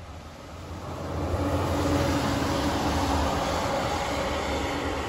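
Coal truck driving past on the road, its diesel engine and tyres swelling to a peak about two seconds in, then fading as it moves away.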